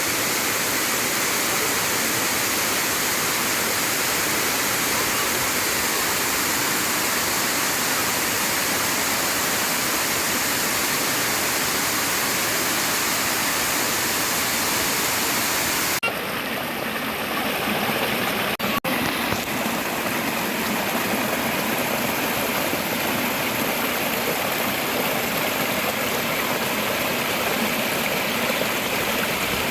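Water rushing steadily over a man-made waterfall, a constant hiss-like roar of falling water. About halfway through the sound changes abruptly and turns a little duller, with a brief dropout shortly after.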